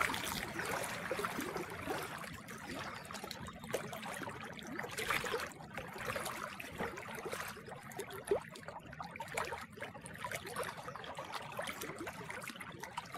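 Small lake waves lapping and splashing, a continuous irregular bubbling wash of water.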